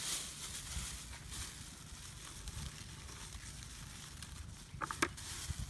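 Open wood-and-palm-frond fire crackling and hissing over a low rumble. A short high-pitched call cuts in about five seconds in.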